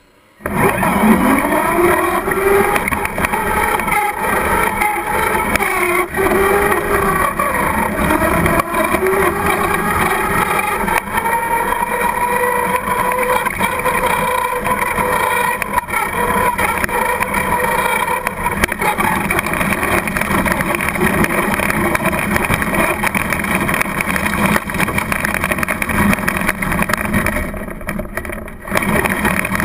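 Traxxas Slash radio-controlled truck driving, heard from a camera mounted on the truck: the motor's whine rises and falls in pitch as it speeds up and slows, over steady tyre and road noise.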